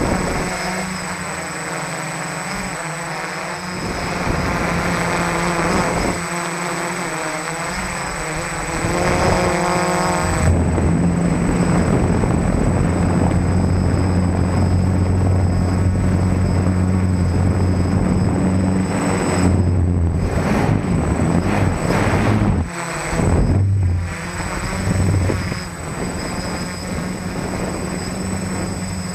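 F450 quadcopter's four SunnySky 980KV brushless motors and 10-inch propellers buzzing in flight, picked up by the onboard camera. The pitch climbs briefly around nine seconds, the buzz gets louder about ten seconds in, and it drops away in a few brief dips near the end as the throttle changes.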